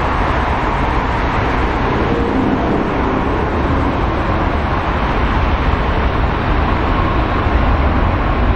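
Lufthansa Boeing 747-8's four GEnx-2B turbofans at take-off thrust: a loud, steady jet roar with a deep rumble as the airliner lifts off and climbs.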